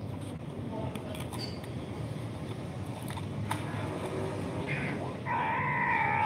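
A cat meowing: one long, drawn-out call starts about five seconds in and is the loudest sound, over a steady low background rumble.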